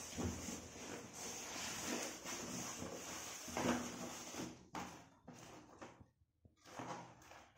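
Cardboard box and plastic wrap being handled during an unboxing: rustling and scraping with a few light knocks. It dies down after about four and a half seconds, leaving only a few soft bumps.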